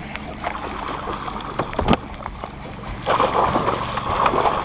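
Water splashing at the surface beside a fishing boat for about a second and a half near the end, over wind on the microphone. A few sharp clicks come in the first two seconds.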